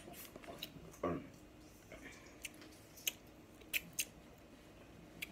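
Snow crab leg shells cracking and snapping as they are broken open by hand: a handful of short, sharp cracks spread out over a few seconds.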